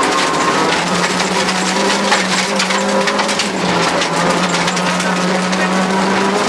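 Rally car engine held at high revs, heard from inside the cabin, with gravel and stones crackling and pinging against the underbody on a loose dirt surface. The revs dip briefly about three and a half seconds in, then come back up.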